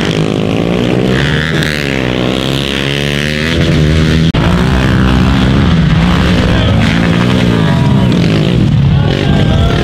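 Pit bike engines revving hard, their pitch rising and falling again and again as the throttle is worked, with an abrupt break a little over four seconds in.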